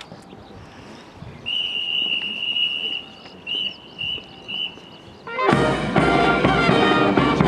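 Drill whistle commands: one long blast, then three short blasts about half a second apart. About five seconds in, a military brass band strikes up.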